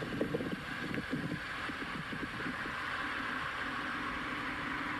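Outdoor parking-lot ambience recorded on a handheld phone: wind buffets the microphone in irregular gusts for the first couple of seconds over a steady hiss, then a steady low hum holds.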